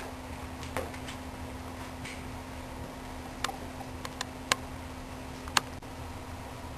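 Quiet room with a steady low hum and a handful of sharp, irregularly spaced clicks and taps, the loudest two near the end.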